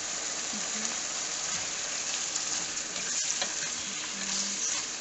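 Pork, onion and chili frying with a steady sizzle in a non-stick pot. A wooden spatula stirs them, scraping and clicking lightly against the pan now and then.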